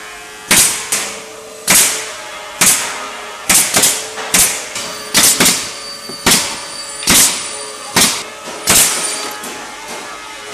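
A series of sharp, loud impacts, about a dozen at roughly one a second, some coming in quick pairs, each ringing briefly, over a steady machine hum on a wooden cable drum production line.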